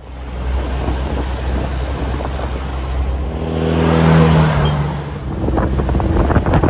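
1954 MG TF's four-cylinder engine running as the roadster drives past, loudest about four seconds in. Near the end it is heard from the open cockpit, with wind buffeting the microphone.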